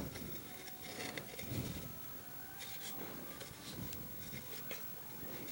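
Faint rustling and light ticks of fingers tying knots in friendship-bracelet strings on a clipboard, with a few soft low bumps.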